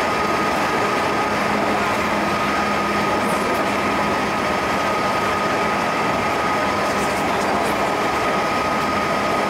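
JR Central 211 series 5000-subseries electric train running at steady speed through a tunnel, heard from just behind the driver's cab: a dense, even rumble of wheels on rail with one steady whine held on a single pitch.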